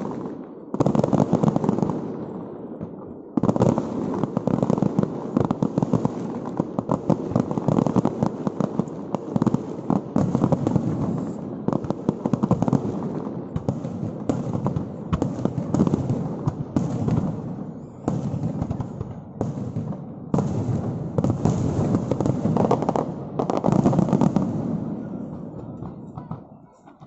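Fireworks display: a dense, rapid barrage of bangs and crackling shell bursts with only brief gaps, thinning out and fading near the end.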